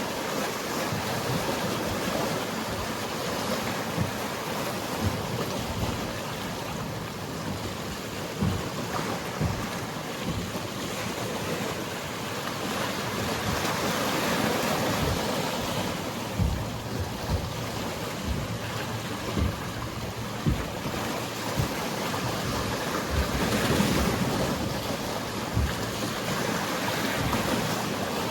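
Mediterranean sea waves washing steadily, with wind and scattered short low thumps, more of them in the second half.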